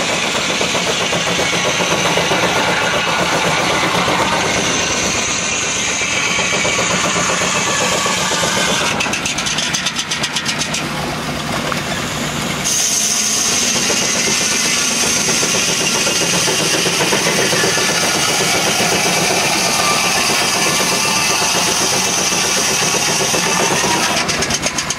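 Steam traction engine running under belt load, driving a belt-powered sawmill. About halfway through, the sawmill's large circular blade cuts through a log with a steady high tone over the machinery.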